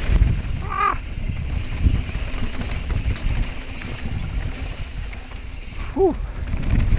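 Wind buffeting a helmet-mounted camera's microphone during a fast mountain bike descent, over a steady low rumble from the tyres on the dirt and rocks. Two short squeaks, each rising then falling in pitch, come about a second in and again near the end.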